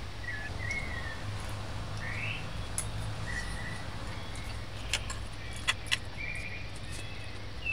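Background birds chirping briefly several times over a steady low hum, with a few sharp clicks of the fork and plate being handled about five to six seconds in.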